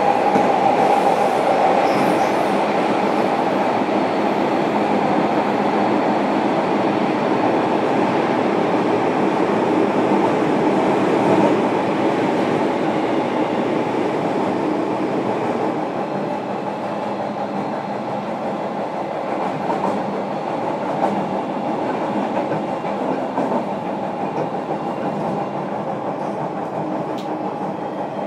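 Running noise heard inside a JR Kyushu 305 series electric train's motor car MoHa 305-106: a steady rumble of wheels on rail at speed, easing a little quieter in the second half.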